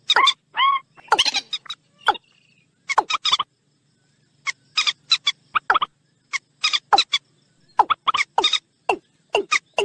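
Common moorhen and watercock calls mixed together: quick runs of short, sharp notes, with a pause of about a second near the middle. It is a lure recording for attracting these swamp birds.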